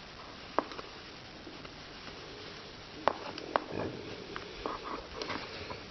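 Soft handling sounds of a doll's clothing being put on: scattered small clicks and light fabric rustling, busiest about halfway through.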